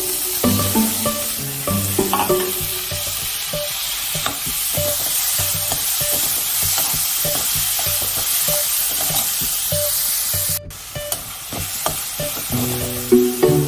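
Chopped onions, tomatoes and green chillies sizzling as they fry in a metal kadai, stirred with a slotted metal spatula that scrapes and taps the pan. The sizzle breaks off abruptly about three-quarters of the way through.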